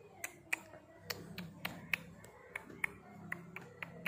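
Sharp, irregular clicks, about two or three a second, over a faint steady low hum.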